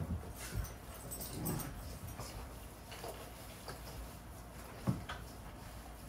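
Cold ground pork squelching and slapping as it is kneaded by hand in a stainless steel bowl, in soft irregular bursts, with a sharper knock about five seconds in.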